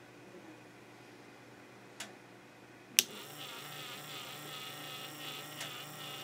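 A sharp click about three seconds in, then the laminator's small drive motor and plastic gear train start running with a steady buzzing whine, turning through the newly 3D-printed replacement gear that stands in for a worn-down one. A fainter click comes a second earlier.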